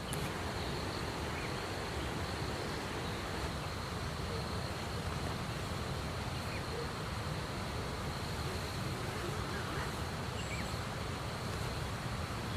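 Steady rushing of a river, with a thin, continuous high insect trill running over it.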